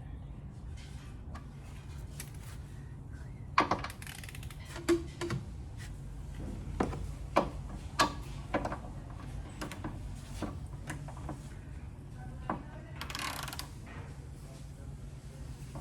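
Scattered metallic clicks and clinks of hand tools and parts during work on a car's rear shock absorber, over a steady low hum, with a short scraping rustle a little before the end.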